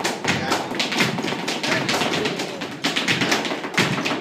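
Flamenco percussion for the close of an alegrías: rapid, sharp zapateado footwork taps on a wooden stage mixed with hand clapping (palmas), many strokes a second in an uneven driving rhythm, with heavier thumps among them.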